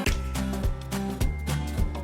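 Background music with a steady beat and a low bass line coming in at the start.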